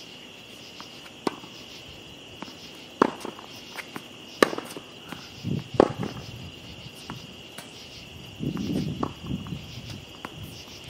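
Tennis rally with Head racquets strung with Kirschbaum strings: the ball is struck and bounces, giving sharp pops every second or two, with footsteps scuffing on the hard court. Insects chirr steadily throughout.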